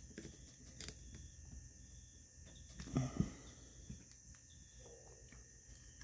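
Faint scattered clicks and scrapes of a small metal pick prying at the stuck, gummed-up needle valve of a small-engine carburetor, with one louder low knock about halfway through.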